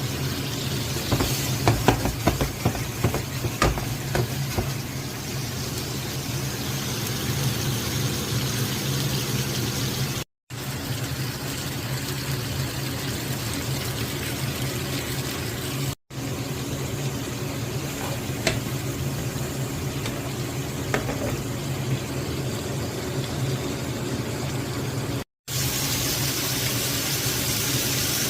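Minced meat kebab frying in a pan: a steady sizzle over a low hum, with a few sharp clicks and scrapes in the first few seconds. The sound breaks off for an instant three times.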